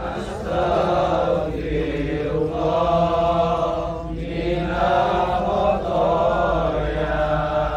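A crowd of men chanting sholawat, Arabic praise of the Prophet Muhammad, together in a slow, drawn-out melody. The chant comes in long phrases with brief breaths about a second and a half and four seconds in.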